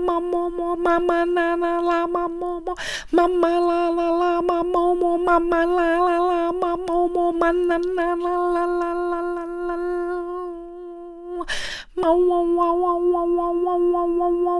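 A woman singing wordless syllables on one steady held note, a quick repeated 'ma ma ma', with two sharp breaths drawn about 3 s and 12 s in.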